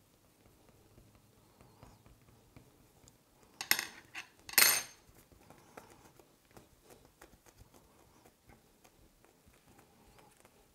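Two short metallic clatters about a second apart, near the middle: a small metal tool or piece of cutlery set down on the hard tabletop, ringing briefly. Around them, faint soft ticks and rustles from fingers pressing and shaping the paste.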